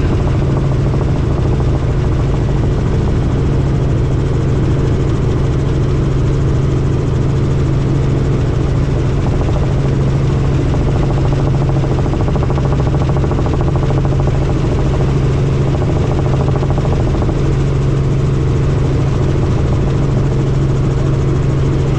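Helicopter's engine and rotor running steadily, a loud even drone with a strong low hum.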